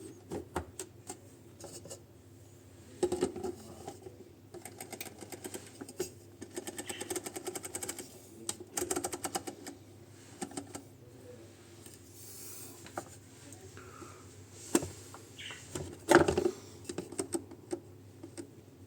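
Irregular clicks, taps and knocks of hard plastic parts being handled and fitted back onto a Hibrew G3 coffee grinder, with quick runs of small clicks and a louder knock about three seconds in and again near the end.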